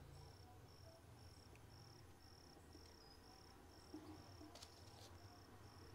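Near silence, with a faint high cricket chirp repeating evenly about twice a second, and a few light clicks of plastic cable ties being handled about four to five seconds in.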